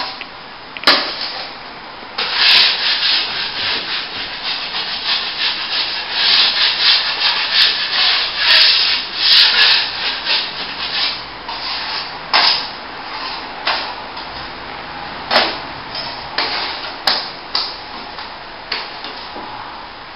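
Steel plastering trowel scraping as it spreads top-coat finishing compound over a plasterboard joint. The scraping strokes come thick and fast at first, then thin out into separate strokes, with a few sharp clicks of the trowel.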